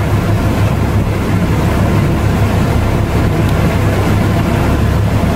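Duck boat amphibious vehicle's engine running steadily as it motors through the water, a low even drone with wind on the microphone.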